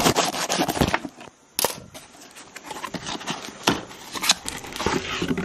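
Hands handling a cardboard box and opening its flaps: a run of knocks, taps and cardboard scrapes, with sharp knocks about a second and a half in and around four seconds in.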